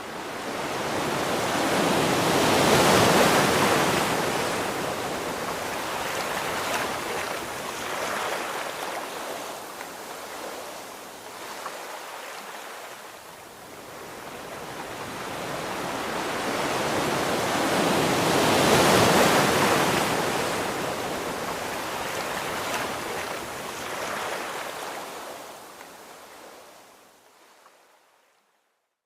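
Ocean surf washing onto a sandy beach, swelling loud twice, about three seconds in and again around nineteen seconds in, then dying away near the end.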